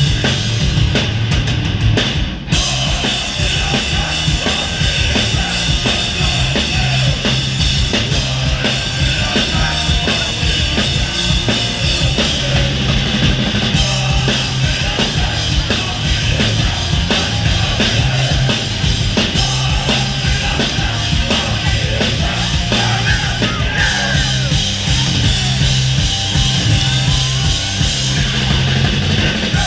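Hardcore punk band playing live at full volume: loud, dense drum-kit beat under distorted electric guitars and bass, with a brief break about two and a half seconds in.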